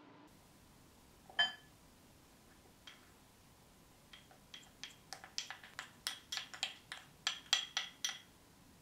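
Light ringing clinks of a glass mixing bowl as starch is tapped out of a small tub with a wooden spoon. There is a single sharp clink about a second in, then from about four seconds a quick run of taps, about five a second, that stops shortly before the end.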